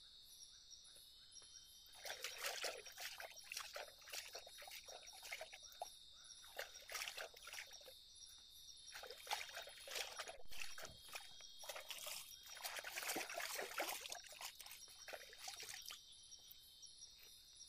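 Water splashing and trickling in irregular bursts, starting about two seconds in and stopping near the end, over a steady high-pitched chorus of crickets.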